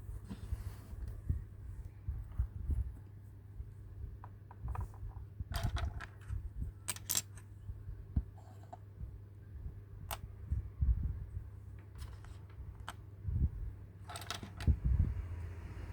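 Small plastic toy pieces from a miniature Hello Kitty fast food house set being handled: scattered sharp clicks and taps, a few in quick clusters, with soft low thuds.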